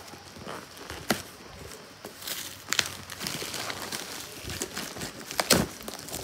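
Packing tape being peeled off a cardboard box, with irregular crackling rips and the scrape and rustle of hands on the cardboard; the sharpest rips come about a second in, near the middle and near the end.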